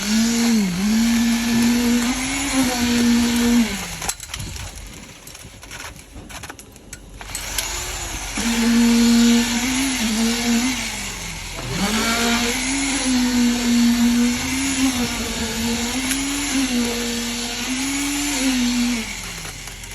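Electric concrete vibrator motor whining at a high, wavering pitch, sagging now and then as it takes load. It cuts out for a few seconds about four seconds in, then starts again and runs until just before the end.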